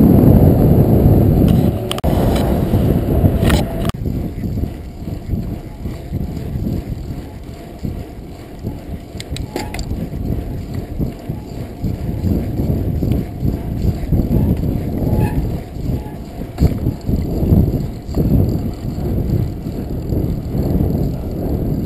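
Full-suspension mountain bike being ridden, heard as wind buffeting the microphone and tyre rumble on pavement and gravel. A few sharp clicks and rattles from the bike break in now and then, and the rumble is loudest in the first few seconds.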